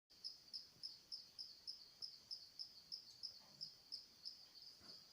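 High, evenly repeated chirps, about three to four a second, like an insect chirping.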